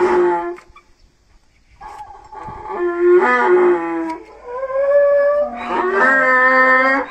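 Donkey braying: one call dies away, and after a pause of about a second a long run of loud, drawn-out hee-haw calls follows, rising in pitch toward the end and stopping abruptly.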